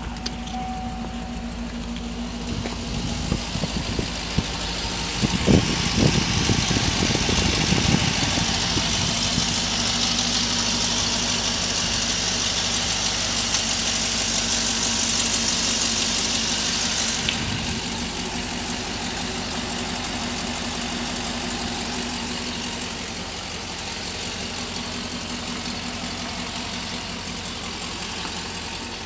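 Chevrolet 6.0-litre LQ4 Vortec V8 running at a steady idle, heard up close in the open engine bay. A few irregular thumps come about five to eight seconds in, and a broad hiss sits over the idle from about five seconds in until it cuts off suddenly about seventeen seconds in.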